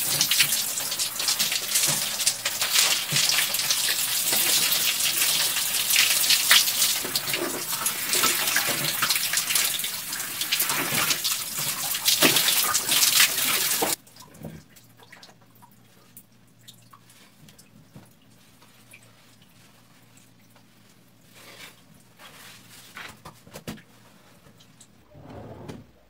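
Shower water running and spraying onto a person. The noise stops abruptly about halfway through and is followed by quiet with a few faint clicks.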